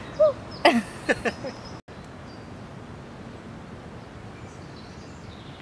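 A few short wordless vocal sounds, gliding in pitch, in the first two seconds. After a sudden cut comes a steady faint woodland background with a few faint high bird chirps.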